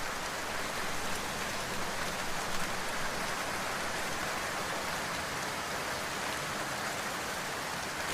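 Steady rain falling: an even hiss of many drops on a surface, with no music.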